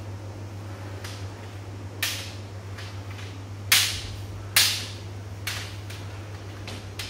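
Kendo sparring: bamboo shinai cracking against each other and against armour, with stamps on the wooden floor. About five sharp cracks over a steady low hum, the loudest two in quick succession near the middle.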